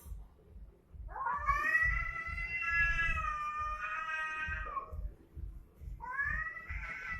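A cat yowling in a fight standoff: one long, drawn-out wail starting about a second in and lasting nearly four seconds, then a second yowl rising in near the end.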